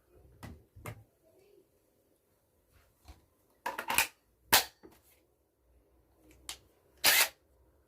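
A string of sharp clicks and knocks from cordless power tool gear being handled, typical of a battery and bit being snapped into an impact driver. The loudest knock comes just past halfway, and a short rattling burst comes near the end.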